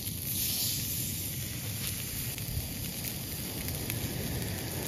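Pouting fillets sizzling steadily on a very hot ridged char-grill pan.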